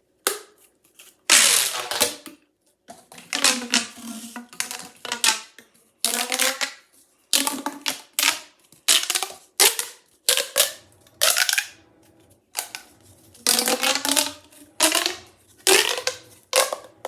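Corrugated plastic pop tubes being stretched and squashed, giving runs of sharp popping clicks with a ringing tone, in repeated bursts.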